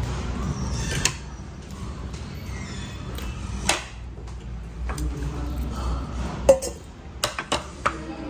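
Metal fork and spoon clinking and scraping on plates during a meal, a few sharp clinks spread through, the loudest about six and a half seconds in and several more close together near the end.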